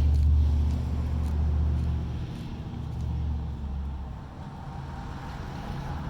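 Low, steady engine rumble, strongest for about the first two seconds and then fading.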